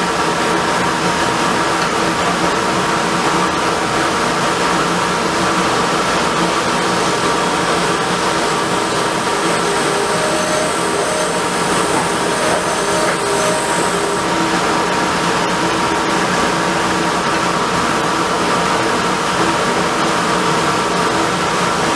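Variable-speed wood lathe running steadily, a constant motor hum and whine. A faint higher whine joins for a few seconds about halfway, then stops.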